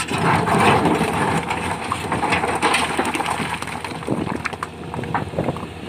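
Plastic toy cars being handled and rummaged, a dense rattling and scraping with many small clicks.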